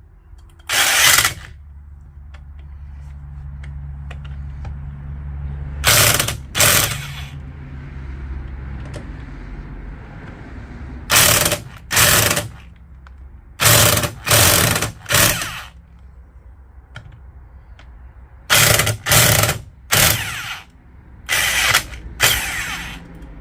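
Vonhaus electric impact wrench hammering in short bursts, about a dozen, often in pairs, as it cracks tight car wheel nuts loose. A steady low hum runs underneath.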